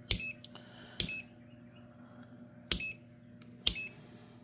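ANENG SZ-301 digital multimeter's rotary selector dial clicked from one range to the next four times, each click followed at once by a short high beep from the meter as it changes function.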